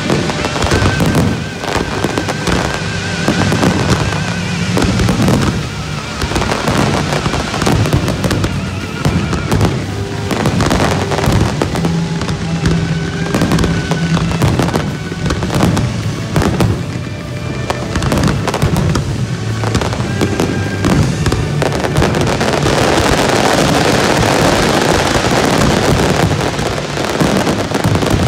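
Fireworks display with many shells bursting and crackling in quick succession, with music playing throughout. In the last few seconds the bursts merge into a dense, continuous crackle.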